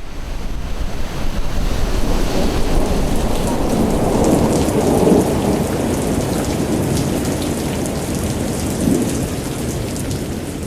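Heavy rain falling, with rolling thunder that swells about four to five seconds in and again near the end.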